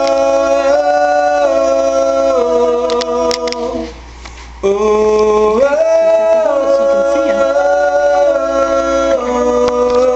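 Two voices, a man and a woman, singing long held notes in harmony without accompaniment, moving to a new chord about every second, with a short break about four seconds in.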